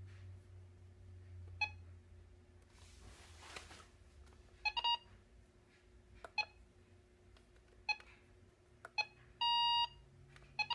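RadioShack 12-521 weather radio giving short electronic button beeps as its menu keys are pressed, about seven of them a second or two apart, with one longer beep about nine and a half seconds in. A brief rush of noise comes about three seconds in.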